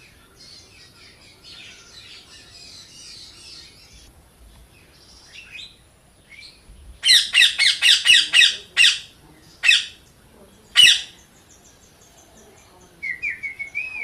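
Indian ringneck parrot squawking: a quick run of harsh, loud screeches about halfway through, then two single screeches, and a short string of softer chirps near the end.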